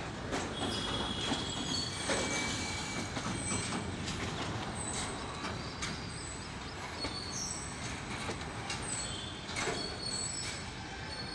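Freight train wagons rolling on the rails: a steady rumble of wheels with many short, high-pitched squeals and scattered clicks, easing off slightly as the train's tail moves away.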